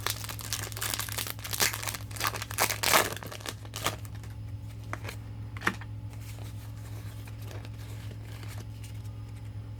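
Foil Pokémon booster pack wrapper being torn open and crinkled by hand, with dense crackling over the first few seconds, then only occasional crinkles.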